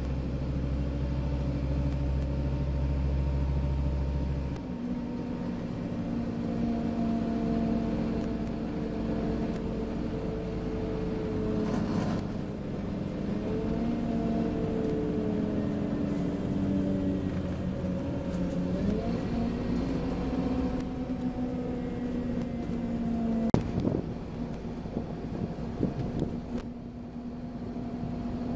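A Scania OmniCity N230UD bus heard from inside the saloon: its five-cylinder diesel and drivetrain. A deep, steady drone holds for the first few seconds, then the bus is under way, its engine and drive whine rising and stepping in pitch through gear changes. There are a couple of sharp knocks or rattles.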